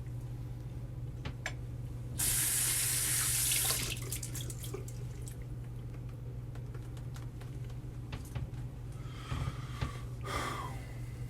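Tap running into a sink for about a second and a half, a couple of seconds in, then shut off abruptly, followed by faint clicks.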